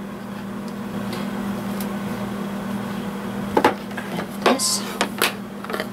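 Kitchen things handled on a countertop: a few light knocks and a brief plastic rustle in the second half, over a steady low hum. The blender is not yet running.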